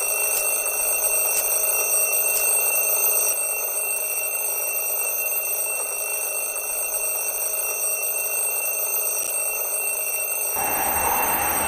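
Alarm clock ringing with a steady high ring and a faint tick about once a second. About ten and a half seconds in, a rushing noise sets in.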